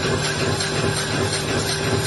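Alfons Haar CNC-EF-P 15 sheetfeed press running: a steady, dense mechanical clatter over a constant hum.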